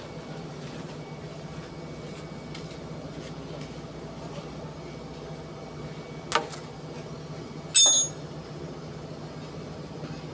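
A steady low machinery hum at a worksite, broken by two sharp metallic clanks about six and eight seconds in. The second clank is louder and rings.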